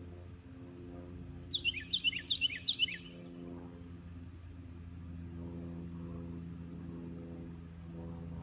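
A songbird gives a fast series of high, downward-slurred chirps about a second and a half in, lasting about a second and a half. A steady low hum of several held tones runs underneath.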